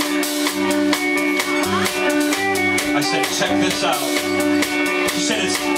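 Live band playing an instrumental passage: guitar over a moving bass line and a drum kit keeping a steady beat.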